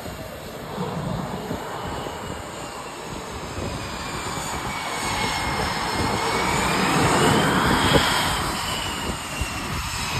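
F/A-18 Super Hornet's jet engines running on a carrier deck just after an arrested landing. The whine rises and falls in pitch and grows louder about two-thirds of the way in, then eases off.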